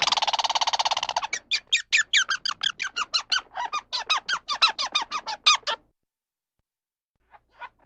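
An animal giving a rapid series of short, high squeaking chirps, about four to five a second, each sliding in pitch. It opens with a brief buzzy trill and breaks off about six seconds in, with a few faint chirps near the end.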